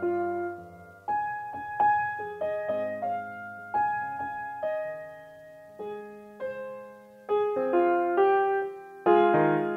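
Slow piano music: single notes and chords struck about once a second, each fading away, with quicker notes near the end.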